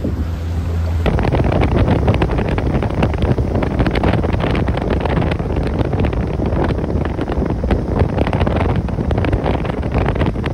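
Small fishing boat under way on a river: a boat motor running steadily under heavy wind buffeting on the microphone, which grows louder about a second in.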